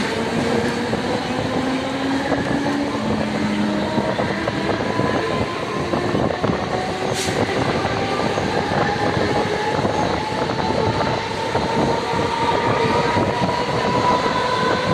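Mumbai suburban local train running on the rails: a steady rumble and rattle with a motor whine that slowly rises in pitch as the train picks up speed. A single short sharp click about seven seconds in.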